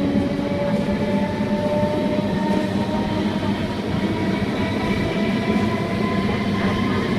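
MEMU electric multiple-unit train picking up speed: the traction motors whine in several slowly rising tones over a steady rumble of the running gear.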